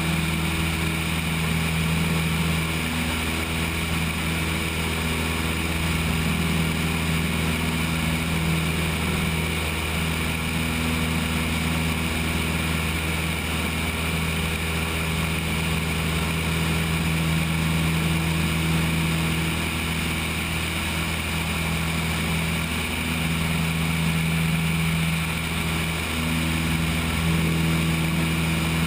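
Cessna 172's engine and propeller running steadily during the climb-out after takeoff, a constant drone with rushing airflow over the wing-mounted camera.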